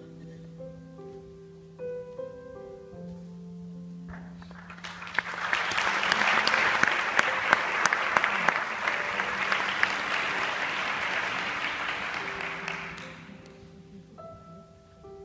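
Live instrumental music: a held low note with sparse higher notes over it. About four seconds in, audience applause swells, lasts about nine seconds and fades out, while the low note carries on beneath it. Near the end the higher notes of the music come back.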